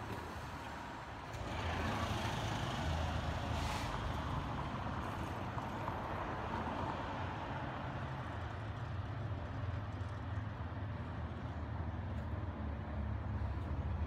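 Street traffic with a vehicle engine running close by: a steady low rumble under a wash of road noise that grows louder about one and a half seconds in, with a brief hiss about four seconds in.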